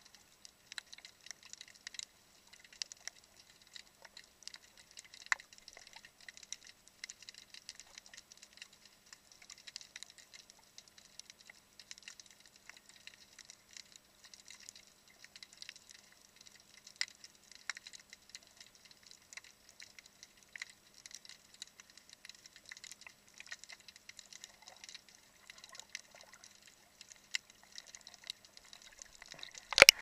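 Underwater crackle of snapping shrimp: a dense, irregular stream of small clicks, with a few sharper snaps standing out. A single loud knock comes right at the end.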